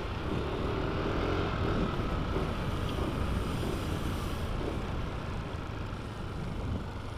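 Motorcycle running at a steady pace with wind rushing over the microphone, a constant low rumble.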